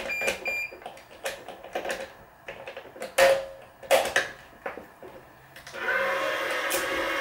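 String-handling clicks and knocks, with two short electronic beeps near the start. From about six seconds in, a steady motor whine from the Wise 2086 electronic tension head pulling a cross string to tension, cutting off sharply.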